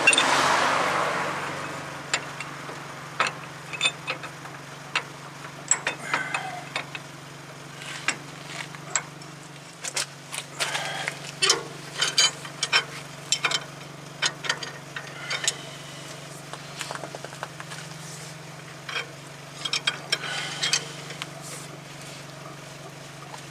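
Ratchet wrench clicking in short irregular runs, with metal tools clinking, as the screw of a ball joint press is cranked tighter to press a ball joint into a truck's suspension arm. A short rush of noise opens it, and a steady low hum runs underneath.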